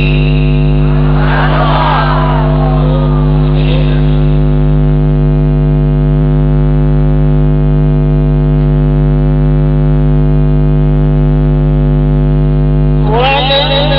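A loud, steady hum with many fixed overtones from the sound system, under a Quran reciter's voice. The voice sings a short gliding phrase about a second in, then stops, and comes back just before the end.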